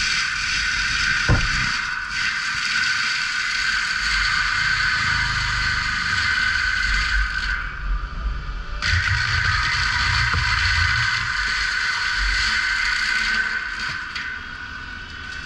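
Caterpillar 299D3 compact track loader's diesel running hard under work, with a steady high whine and hiss over a low rumble. There is a sharp knock about a second in, and the noise dips briefly twice.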